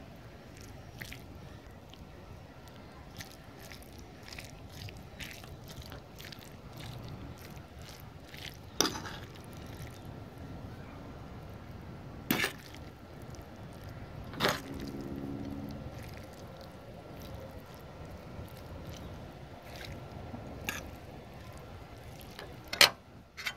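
Steady background noise broken by a few sharp clicks or taps, the loudest near the end.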